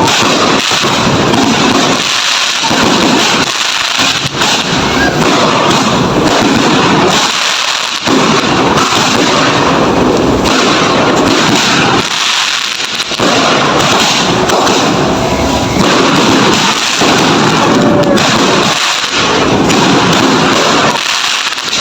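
Fireworks going off in a dense, unbroken barrage of bangs and crackles, loud throughout with only brief lulls.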